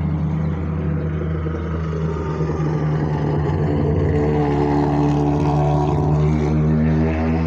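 Race car engines at full throttle as hill-climb cars pass close by. From about halfway through, an engine note climbs steadily in pitch as a car accelerates up the course.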